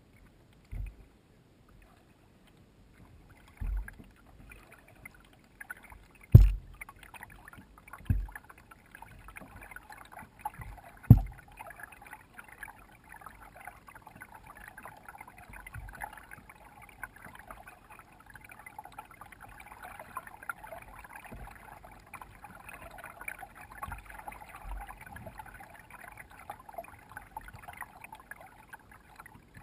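A kayak being paddled on calm water, with the steady splash and trickle of the paddle strokes. Several dull knocks on the hull come in the first twelve seconds, the loudest about 6 and 11 seconds in.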